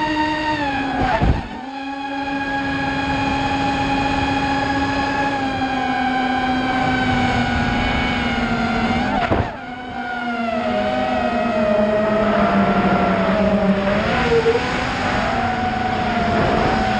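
FPV racing quadcopter's motors and propellers whining, pitch changing with throttle. The whine drops sharply twice, about a second in and again near the middle, as the throttle is cut, then climbs back, and wavers up and down near the end.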